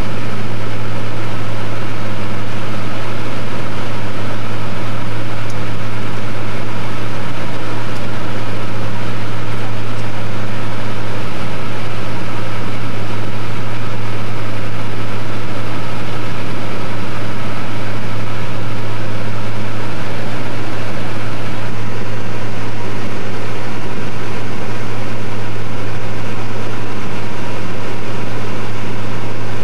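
Light aircraft's piston engine and propeller running steadily in cruise flight: a loud, even low hum with a rushing noise above it.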